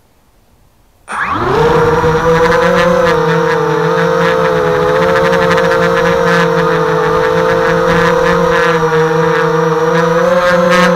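After a quiet first second, the HobbyKing FPV250 quadcopter's electric motors and propellers come in suddenly with a brief rising whine. They then run at a steady, loud, multi-toned whine with small wobbles in pitch.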